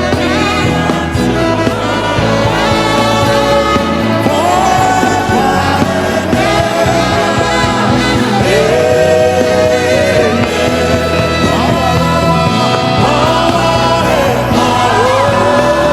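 Worship music: sung melody over a full band accompaniment, with voices holding and sliding between long notes.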